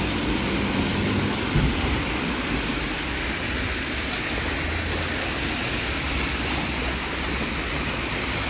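Heavy rain runoff rushing over a street storm-drain grate and pouring into it during a downpour, a steady loud wash of water. The drain is taking the water even though litter is caught on the grate. A short thump comes about one and a half seconds in.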